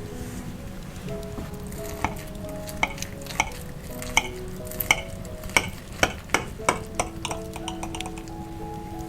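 A utensil stirring food in a frying pan, with sharp knocks against the pan about once or twice a second over a steady sizzle, and soft background music.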